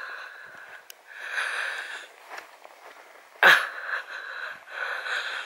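A walker breathing close to the microphone, in hazy breaths, with one sharp, louder breath or sniff about three and a half seconds in.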